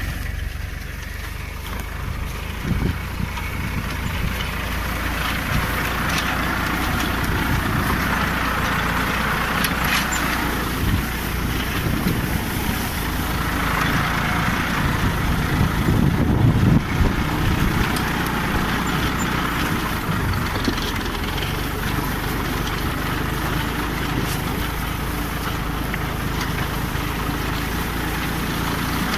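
Tractor engine running steadily under load while pulling a deep plough, with the engine note swelling a few times.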